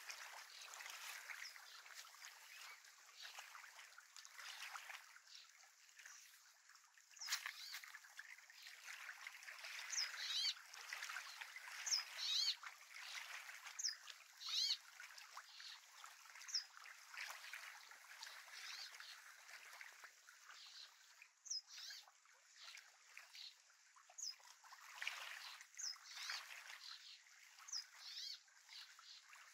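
Small waves lapping and trickling against the lakeshore, with scattered short, high bird chirps over it.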